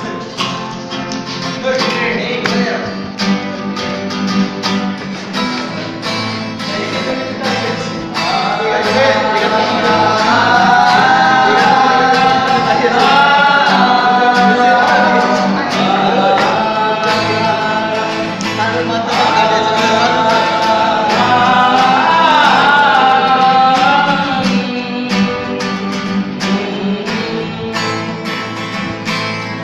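Acoustic guitar strummed steadily while several boys sing along together; the singing grows louder from about eight seconds in.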